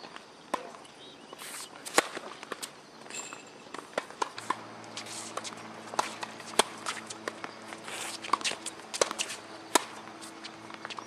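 Tennis rally on a hard court: sharp pops of rackets striking the ball every couple of seconds, with shoes scuffing and stepping on the court surface between shots.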